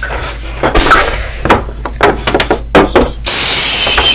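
Small plastic toy animal figures knocking and clattering on a wooden tabletop, several sharp taps, then a loud steady rubbing noise over the last second as figures are pushed across the table.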